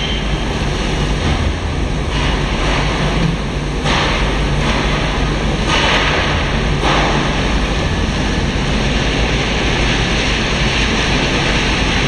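Snack-food processing machinery running: a steady rushing noise over a low hum, from a trough conveyor carrying fried snack pieces. The hiss grows brighter for a few seconds in the middle.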